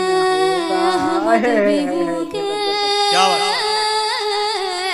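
A woman singing a naat, drawing out long held notes with ornamented turns and vibrato, with a short break just past the middle.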